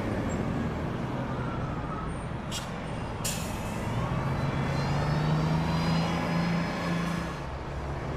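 City bus engines running, with two short air-brake hisses about two and a half and three seconds in, the second longer and trailing off. Around the middle, an engine note rises as a bus pulls away.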